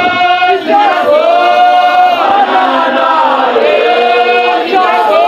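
Live gospel singing: a man's voice into a microphone with other voices joining in, in long held notes that bend and waver.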